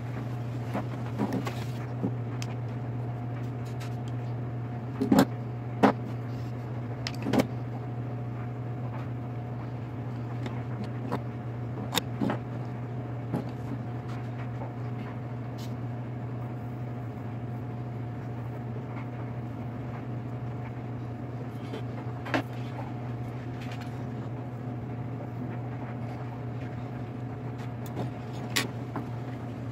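Scattered clicks and taps from wires, plastic plug connectors and hand tools being handled during go-kart wiring, about a dozen of them, the loudest a few seconds in. A steady low hum runs underneath.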